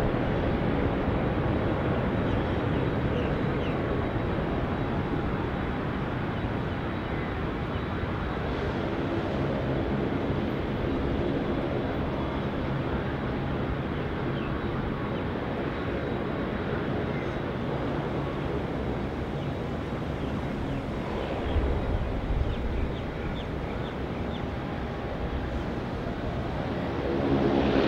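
Airbus A380 jet engines running at low thrust as the airliner taxis, a steady distant hum and rumble that grows louder near the end.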